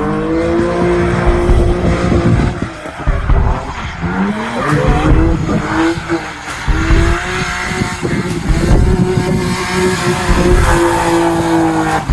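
BMW 3 Series Compact drift car's engine held at high revs while the car slides sideways, with tyre squeal and skidding underneath. The revs drop away about three seconds in, climb again a second later, and then hold steady.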